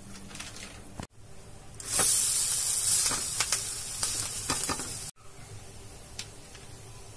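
Egg and flour cheela frying in oil in a nonstick pan: a loud sizzle for about three seconds in the middle, with a few short scrapes and taps of a slotted spatula, cut off abruptly. Before and after it, only a faint steady frying hiss.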